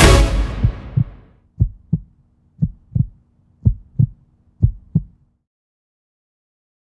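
Electronic music fading out, then a heartbeat sound effect: four double thumps, about one pair a second, over a faint low hum. It stops a little after five seconds in.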